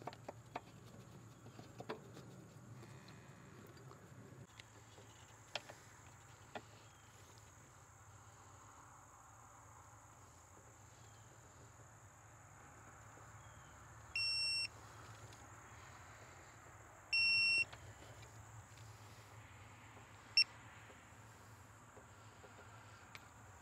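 Two half-second electronic beeps about three seconds apart, then a shorter blip, over a few faint tool clicks; the beeps are typical of a digital torque wrench signalling that a bolt has reached its set torque.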